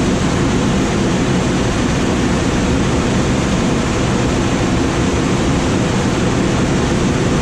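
Steady, low rush of airflow around a glider's cockpit in flight, unchanging throughout.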